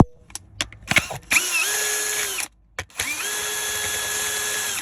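Power drill/driver backing out the screws that hold the gear shifter assembly: a few clicks, then two runs of the motor, each spinning up and holding a steady pitch for a second or two.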